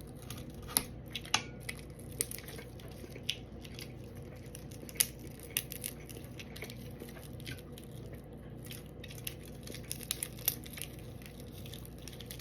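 Scattered small clicks, crackles and soft squishes of someone picking meat off a fried red snapper head and eating it, over a steady low hum.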